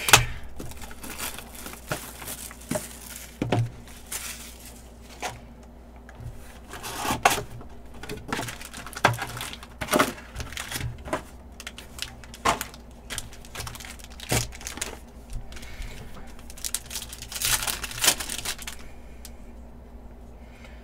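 Plastic shrink wrap torn off a Panini Mosaic basketball card box, then foil card packs ripped open: irregular crinkling and tearing that turns quieter near the end.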